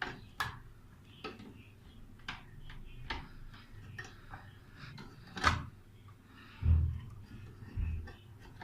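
Scattered clicks and knocks of hands handling computer parts while plugging in a cable connector, with a sharper click about five and a half seconds in and two dull thumps soon after.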